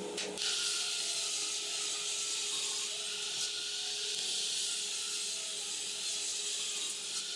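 Table saw running and cutting through a sheet of BC sanded plywood: a steady, hissing blade-in-wood noise that holds level and stops abruptly at the end.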